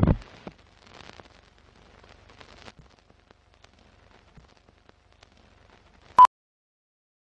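Animated film-leader countdown effects: a heavy thump that dies away at once, then faint old-film crackle with scattered clicks, and one short high beep about six seconds in, the leader's countdown beep.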